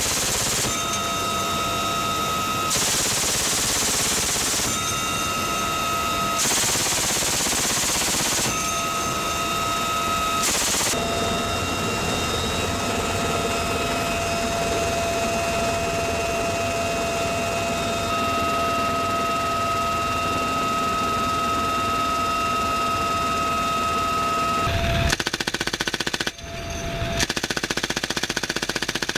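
Door-mounted heavy machine gun firing bursts of about two seconds each from inside a UH-1Y Venom helicopter's cabin, over the helicopter's steady high whine. Four bursts come in the first ten seconds, then a stretch of only the whine, then two more bursts near the end.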